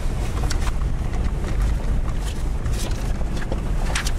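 Steady low rumble of a 4x4 driving up a rough dirt mountain road, heard from inside the cab, with a few sharp rattles and knocks as it bounces over the rocky track.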